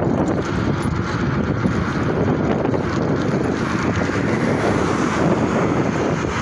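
Steady wind noise on the microphone of a camera carried on a moving bicycle, mixed with road traffic passing on the highway.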